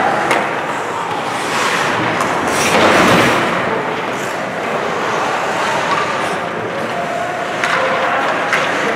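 Ice hockey skates scraping and carving on the rink ice, with scattered sharp clacks of sticks and puck. The scraping swells about three seconds in, and faint voices carry in the arena.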